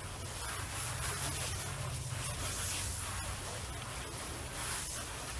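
Hand-pump pressure sprayer misting soapy water onto a car hood: a steady hiss of spray over a low, steady hum.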